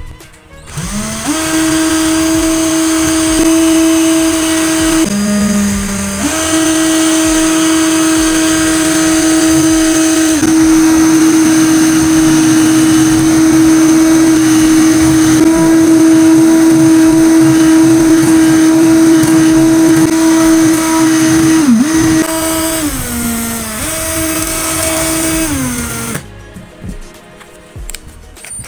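Cordless drill motor spinning up and running at a steady high speed, turning a steel rivet pin in its chuck against a hacksaw blade, with the scrape of the blade on the spinning metal. The motor bogs down briefly twice under load, then winds down to a stop near the end.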